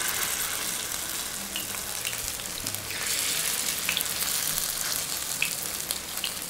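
Masala-coated egg cubes sizzling as they shallow-fry in hot oil in a non-stick pan, with a steady hiss and scattered small crackles and pops. The sizzle grows a little louder about three seconds in as more pieces go into the oil.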